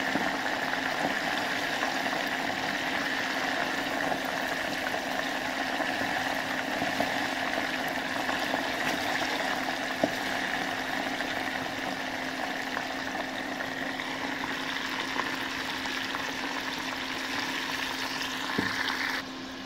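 Sweet corn kernels deep-frying in hot oil in a lidded steel pot: a steady sizzle of bubbling oil, with a steady low hum underneath.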